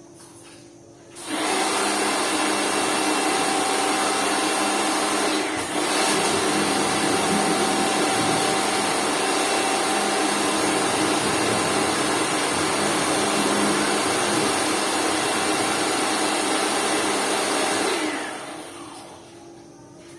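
Lakoni Laguna 70 electric pressure washer starting up about a second in and running steadily with a loud whir, cutting out for an instant about five seconds later, then winding down over a second or so near the end.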